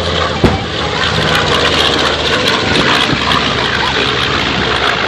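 Twin-engine piston warbird bomber flying past, its propellers and engines making a steady drone, with a single sharp knock about half a second in.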